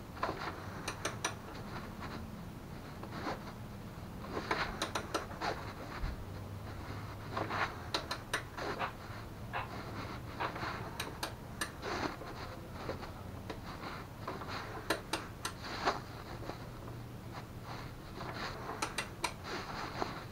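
Small metal clicks and clinks from hand tools and bolts, coming in short quick runs of two or three every second or few, over a low steady hum, as bolts are worked into a mobility scooter's front bumper.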